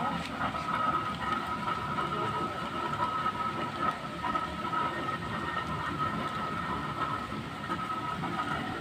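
Heavy rain falling, a steady unbroken noise with a faint high steady whine running through it.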